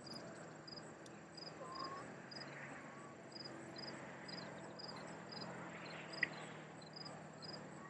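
Faint outdoor ambience: an insect chirping steadily, about twice a second, over a low distant hum, with a single short click about six seconds in.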